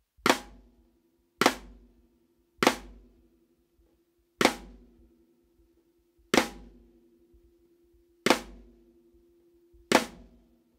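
Snare drum struck with a rim click and a normal stroke together, the combination used to imitate a clap sound. Seven single hits at a slow, uneven pace, the drum ringing between them.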